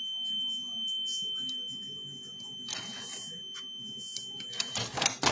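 A homemade vending machine's electronic signal beeper holds one steady high tone, the signal that a 5-denar coin has been accepted, and cuts off near the end, over a low hum. A quick run of clicks and rattles follows just after the tone stops.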